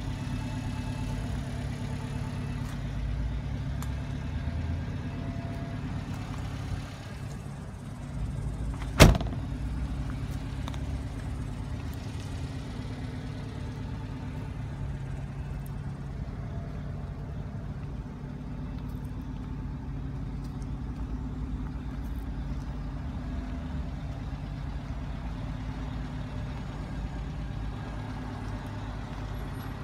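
Subaru Sambar kei truck's small four-cylinder engine idling steadily, with a cab door slammed shut once about nine seconds in.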